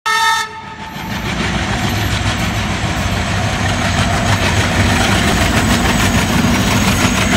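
Indian Railways diesel locomotive passing close by, with a steady low engine rumble and the clatter of wheels and carriages. A short, loud horn-like tone sounds at the very start and is cut off within half a second.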